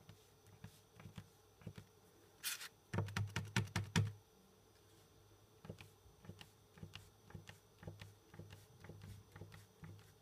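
Paint marker pen tapping and clicking: a short scratchy rustle, then a quick run of about eight sharp taps in about a second, followed by lighter scattered taps.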